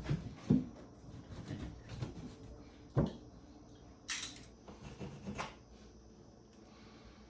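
Scattered knocks and handling sounds of drywall patching work. One sharp knock comes about three seconds in and a brief scrape about a second later.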